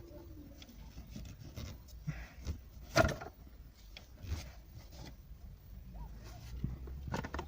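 A dry cloth rubbing and wiping oil off the horn contacts behind a car steering wheel, in short scratchy strokes. A sharp click or knock comes about three seconds in.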